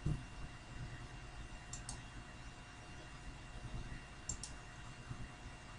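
Computer mouse clicking: two quick pairs of clicks, about two seconds apart, over faint steady room hiss and hum.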